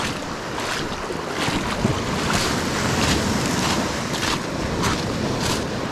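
Small lake waves breaking and washing up the shore in repeated surges, with wind buffeting the microphone.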